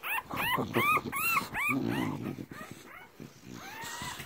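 Newborn English Bulldog puppy squealing: a quick run of short, high cries that rise and fall in the first second and a half, a low grunt about halfway through, and one longer cry near the end.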